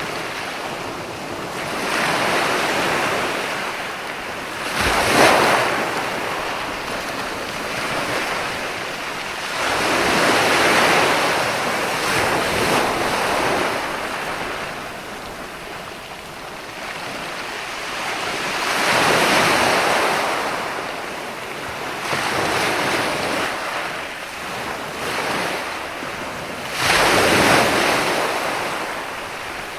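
Ocean waves breaking on a shore, the surf swelling and fading every few seconds, with the sharpest crashes about five seconds in and near the end.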